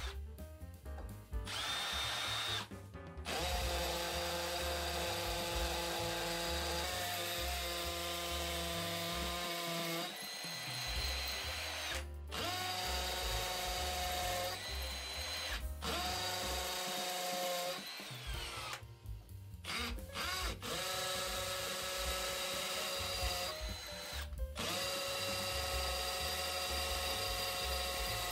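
Milwaukee FUEL cordless hammer drill boring into brick. Its motor whine runs in stretches broken by several short stops, changing pitch a little after each break.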